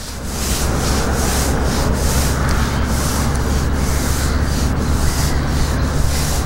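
A fishing pole being slowly shipped out, its sections sliding over the pole rests: a steady rubbing hiss with a low rumble under it, starting suddenly and running on without a break.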